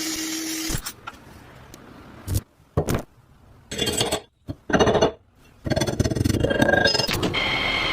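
Workshop handling sounds from restoring a rusty scale: a steady tool tone that stops under a second in, then several short separate scrapes and knocks, then a longer scraping noise with a thin steady whine near the end.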